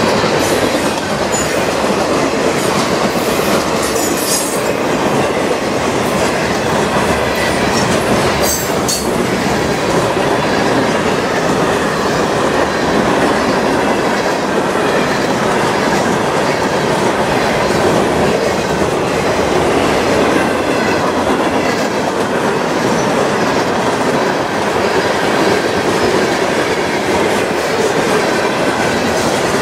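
Freight train cars rolling steadily past on the track, the continuous noise of wheels on rail, with a few brief high squeals from the wheels a few seconds in and again around nine seconds.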